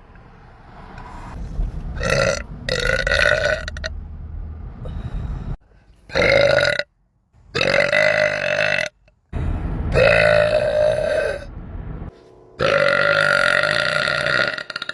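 A woman's long, loud burps, one after another, each a steady drawn-out belch lasting a second or two, with abrupt breaks between them.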